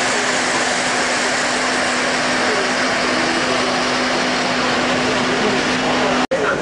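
Model trains running on a large layout: a steady rumble of wheels on track with a constant low hum, over the chatter of a crowded hall. The sound breaks off for an instant near the end.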